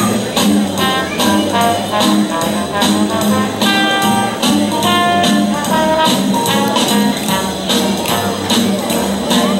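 Jazzy instrumental music with brass carrying the melody over a steady beat.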